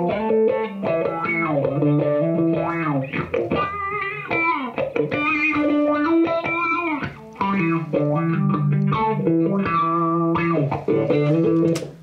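Electric guitar test track played back through the Bias FX 2 amp-simulator plugin, a run of single notes and chords with the plugin's wah pedal being swept back and forth from a foot expression pedal.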